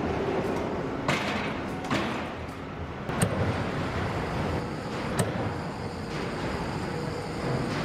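Steady industrial machinery hum with four sharp metallic knocks at irregular intervals, each ringing briefly.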